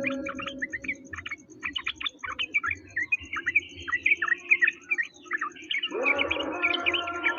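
Songbird chirping and twittering in quick, varied notes, from a masteran bird-song recording. A steady, fast high ticking runs underneath. A humming music-like drone fades out at the start and comes back about six seconds in.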